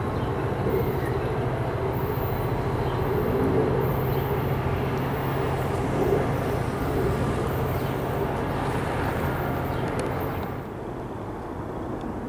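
Commuter train pulling away along the track, its diesel locomotive running with a steady low drone over the rumble of the cars. A little over ten seconds in the sound drops to quieter outdoor background.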